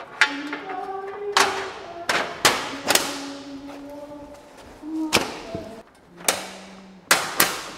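A series of about eight sharp, irregularly spaced knocks and thuds, some in quick pairs, from work on the plywood loft floor at the foot of the aluminum railing, with faint held tones between them.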